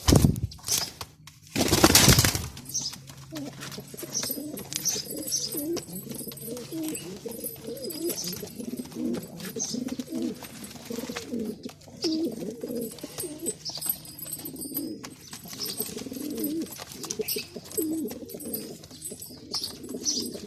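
Male pigeon cooing in repeated low, throaty phrases, with short high chirps over them. Two loud rushing bursts come in the first two seconds.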